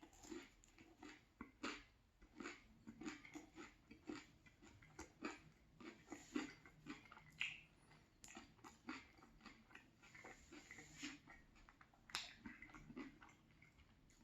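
Close-miked chewing of a banh mi sandwich: irregular crunchy bites and wet mouth sounds, a few per second.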